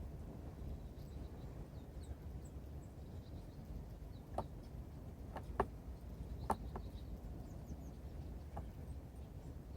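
Birds feeding at a winter feeder: faint, short, high chirps of small birds and about half a dozen sharp taps, like beaks pecking at the feeder, over a low outdoor rumble.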